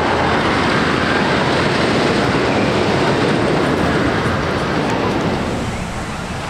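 A Great Coaster International wooden roller coaster train running along its wooden track with a steady rumble, which eases off near the end.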